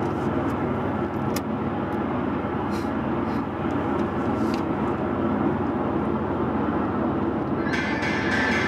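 Steady road and engine noise inside a moving car's cabin at expressway speed. Near the end a higher-pitched sound joins in.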